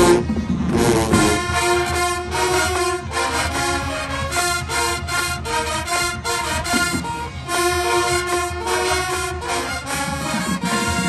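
Marching band brass section, sousaphones among the horns, playing a stand tune in loud held chords and runs of short punched notes.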